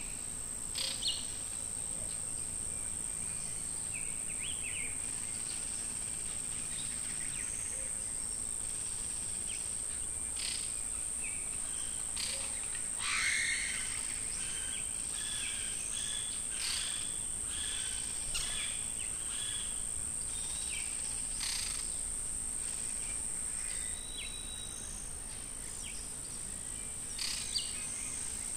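Insects trilling steadily at a high pitch, with birds calling now and then over them, including a run of repeated notes in the middle.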